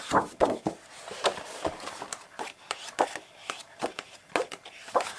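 Sheets of scrapbook paper rustling and crackling as they are handled, lifted, leafed through and laid flat on a table: a run of short, irregular rustles and pats.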